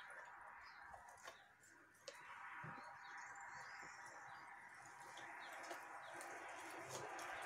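Faint handling sounds of wet cement-soaked rags being pressed and smoothed onto a plastic bottle by gloved hands, with a few soft clicks. Under them runs a faint steady background noise that grows slightly louder toward the end.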